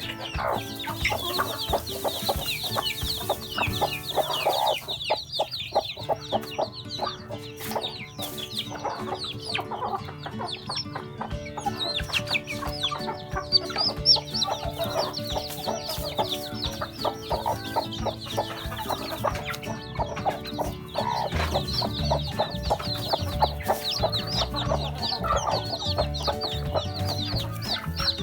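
A brood of chicks peeping constantly in quick, high, falling chirps, with a hen clucking now and then, over background music with held notes.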